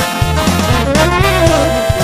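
Instrumental jazz music with brass horns playing a melody over a steady bass line.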